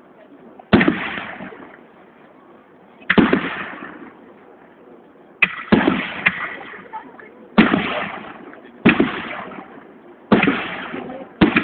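Aerial firework shells bursting one after another: about eight loud bangs, one to two seconds apart, each trailing off in an echoing rumble.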